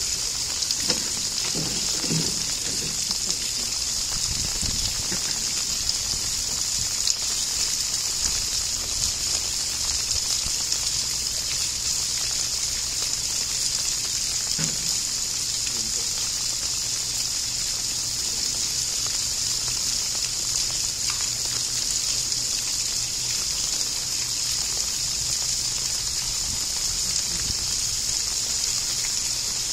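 Steady hiss of water that runs unchanged throughout, with faint voices in the first few seconds.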